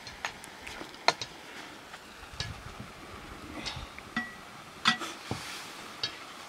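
Metal spatula clinking and scraping against a black wok while stirring mustard greens: irregular sharp clinks, the loudest about a second in and just before five seconds, one or two ringing briefly.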